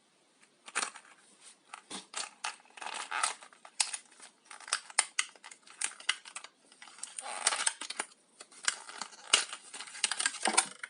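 Handling a metal spoon lure and its plastic packaging: a rapid run of small clicks and crinkling rustles.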